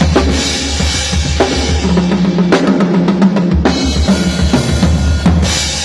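Drum kit playing a steady groove of kick drum and snare strikes over a deep, continuous bass, with a held low note in the middle.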